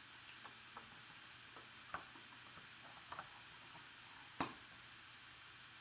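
Faint, scattered clicks and taps from objects being handled, with a few sharper ones about two, three and four and a half seconds in, over a low room hiss.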